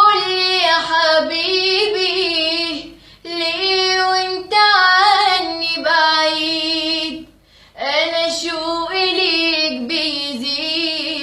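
A girl singing alone without accompaniment, holding long ornamented notes that waver in pitch. She breaks off briefly twice, about three seconds in and again near the middle.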